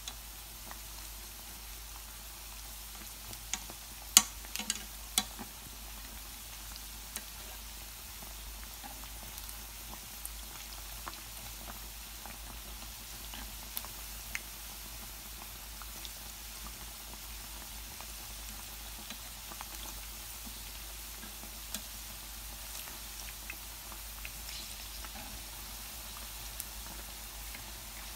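Menbosha (shrimp toast) deep-frying in low-temperature oil: a steady sizzle with scattered small crackles and pops. A few sharp clicks stand out about four to five seconds in.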